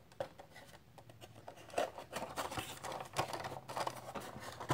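Hands opening a cardboard Funko Pop box: cardboard and the plastic window insert scraping and rustling, with sharp clicks, louder from about two seconds in.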